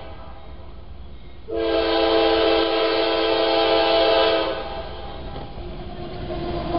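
Horn of an approaching CSX freight locomotive: one long chord blast of about three seconds, starting about a second and a half in. After it cuts off, the lower rumble of the locomotive passing close by.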